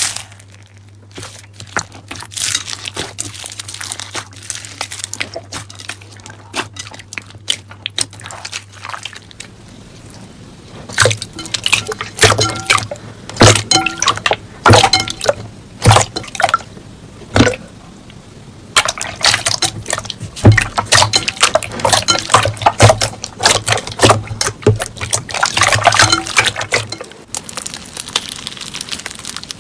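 Slime being squeezed, stretched and poked by hand, giving wet, sticky clicks and pops: sparse at first, dense from about a third of the way in. A low steady hum sits underneath and stops near the end.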